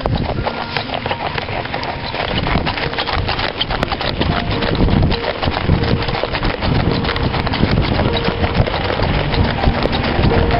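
A horse's hooves clopping on a packed-snow road as it pulls a cart, over a constant crunching noise of travel across the snow.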